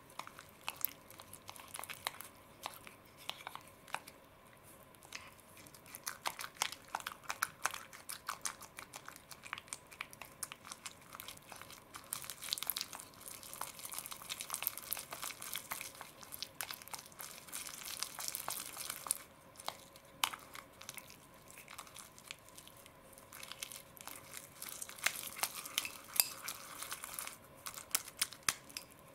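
Wooden chopsticks working a lump of sticky slime dough in a glass bowl: a dense run of small wet crackles and clicks, with the chopsticks now and then knocking the glass.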